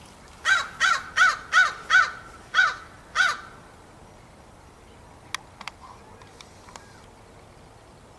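A crow cawing: a quick series of seven harsh caws, about two a second, then it stops. A few faint sharp clicks follow.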